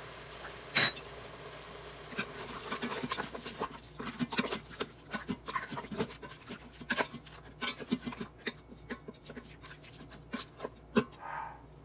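Wooden spatula stirring lamb pieces and yoghurt in a stainless steel Instant Pot inner pot: irregular scrapes and knocks against the pot, coming thick and fast from about two seconds in until near the end.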